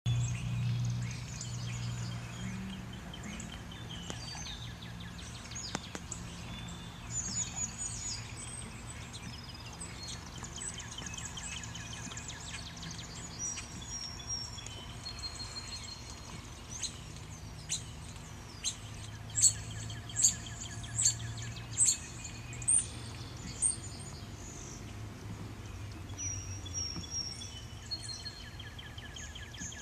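Several songbirds chirping and trilling, with a run of about six loud, sharp chirps a little under a second apart about two-thirds of the way through, over a low steady background rumble.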